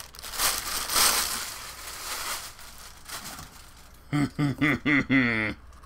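Packaging rustling and crinkling as a cardboard mystery box is opened, strongest in the first couple of seconds and then fading. A man's voice is heard briefly near the end.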